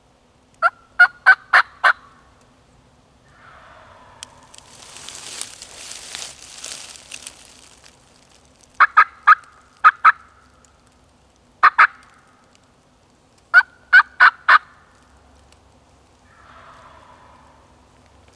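Wild turkey yelps: loud, sharp, evenly spaced notes in short runs, five, then three, two, one and four. A rushing gust of wind passes through the middle, and two faint, softer calls sound briefly near the start and near the end.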